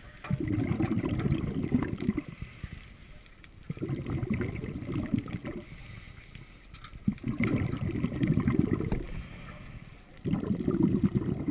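Scuba regulator exhaust bubbles from a diver's breathing, heard underwater: four rumbling, bubbling bursts, each about one and a half to two seconds long, coming about every three and a half seconds with quieter inhalation gaps between.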